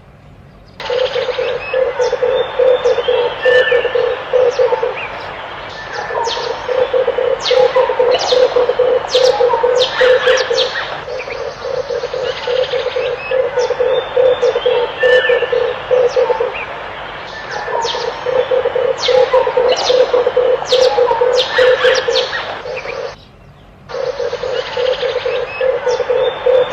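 Red turtle doves cooing: about five long, rolling, pulsing low coos with short breaks between them. Other small birds chirp and twitter over them. This is a recording of the kind played as a decoy call to lure the doves.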